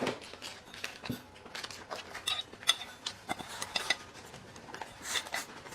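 Cutlery clinking against dishes: a string of light irregular clicks and clinks, some with a brief ring.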